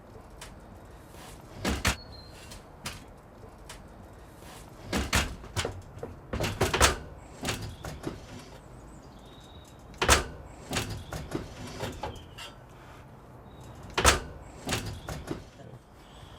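Irregular knocks and clunks of a heavy Philips tape deck being wriggled and jiggled into its metal rack framework, with several louder bangs spread through, the loudest about ten seconds in and again near fourteen.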